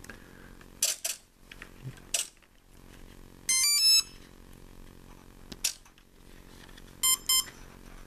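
Electronic start-up tones from the model's brushless speed controller, played through the 10 gram outrunner motor as the 2S battery is connected: a half-second run of stepped notes about 3.5 s in, then a shorter group of beeps near the end. Light clicks from handling the small plane's parts come between them.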